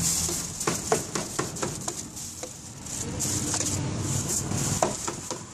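Knife tapping and scraping on a wooden chopping block as chopped pork head meat is gathered up for tacos: a string of light, irregular knocks.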